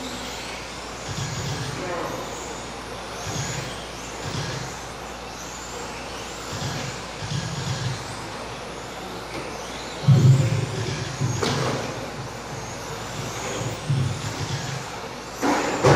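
Electric 1/10-scale RC touring cars with 17.5-turn brushless motors whining past one after another at racing speed, each whine sweeping in pitch as a car goes by.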